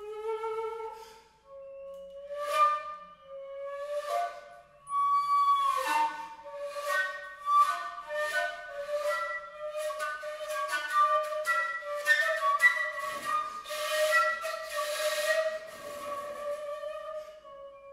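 Contemporary chamber music for shakuhachi, flute, bass clarinet, violin, viola and cello. Long held tones sit under flute-like lines with repeated breathy, airy attacks. The attacks are sparse at first and come thick and fast from about five seconds in.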